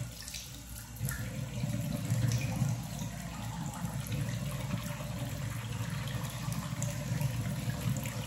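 Water running from a bathroom tap into the sink, getting louder about a second in, with the scrubbing of a manual toothbrush on teeth.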